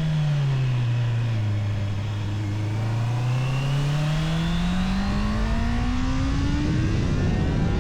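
Honda CBR650R inline-four engine through its stock exhaust, heard while riding. The revs drop over the first couple of seconds, hold low briefly, then climb steadily as the bike pulls, with a low wind rumble underneath.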